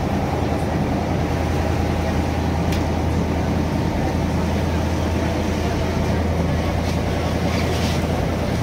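Boat engine running steadily under way, a constant low hum with a steady wash of noise over it.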